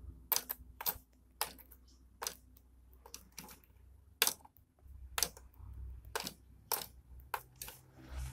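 Plastic clicks from a DX Zero-One Driver toy belt and its Zetsumerise key being handled: about a dozen sharp, separate clicks at uneven intervals, the loudest about four seconds in.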